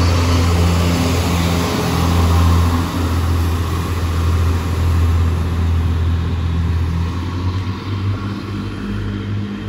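Renfe class 592 diesel multiple unit pulling away from the platform, its diesel engines working under load with a deep steady drone over wheel and rail noise, easing off a little near the end as the train moves off.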